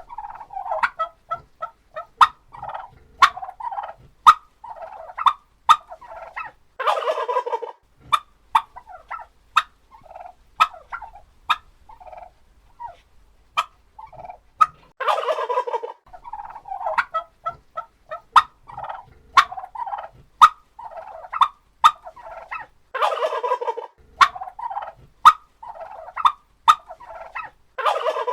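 Turkeys gobbling: four long rattling gobbles about eight seconds apart, the last right at the end, with many short chirps and sharp clicking calls in between.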